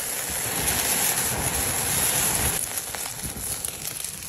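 Marinated meat and vegetables sizzling on a wire grill over a charcoal fire as liquid is poured onto them. The hiss is loud at first and eases about two and a half seconds in, leaving lighter crackling.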